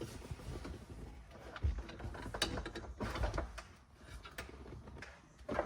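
Lamborghini Murcielago interior door panel being lifted and worked off the door: scattered plastic clicks, scrapes and knocks from handling, with a sharper knock near the end.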